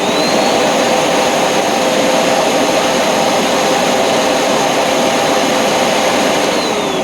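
Hoover NanoLite upright vacuum motor, belt removed, running at full speed with a loud, steady high whine. Near the end it is switched off and begins winding down, its pitch falling; the owner finds the wind-down a little long but judges the motor free of serious damage.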